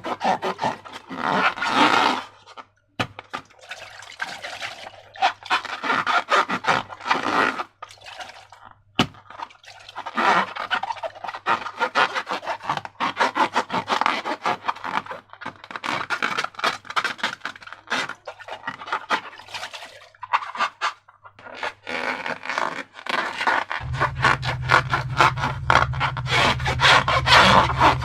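Slime being squeezed and worked by hand, giving sticky crackling, clicking and scraping in several bursts with short pauses between them. A steady low hum joins near the end.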